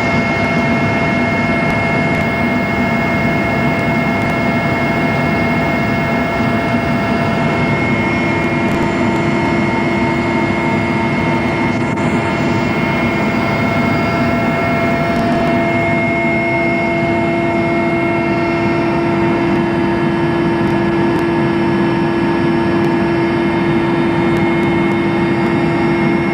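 Helicopter in flight: a loud, steady drone of turbine engines and rotor with several constant whining tones from the engines and gearbox.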